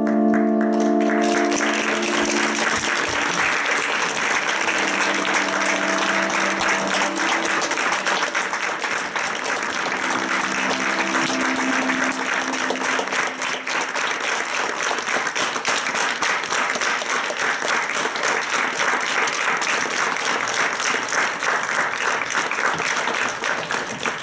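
Audience applauding steadily, with held notes of music under the clapping for roughly the first half before the music drops out.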